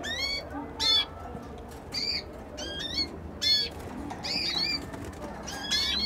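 Canaries in a cage giving short, high chirping calls, one every half second to a second.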